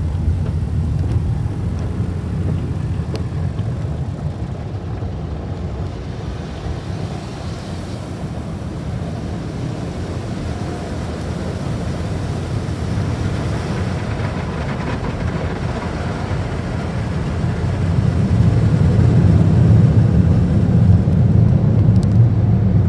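Motor City Wash Works tunnel car wash heard from inside the car: water spray and cloth washing over the body and glass, a steady low rumbling wash. It grows louder about eighteen seconds in, as red cloth strips hang over the windshield.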